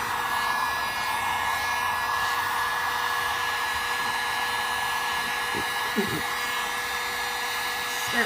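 Heat gun running steadily, a continuous blowing hiss with a steady motor whine, heating a plastic bumper cover to soften it so the dent can be pushed out.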